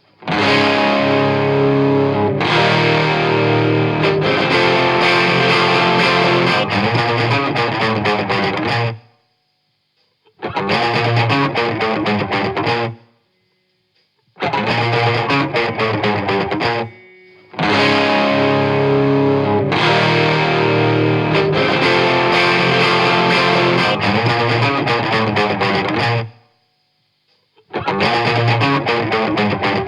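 Distorted electric guitar recording, run through an SSL-style VCA stereo bus compressor, played in several separate clips that each stop abruptly, with short silent gaps between them.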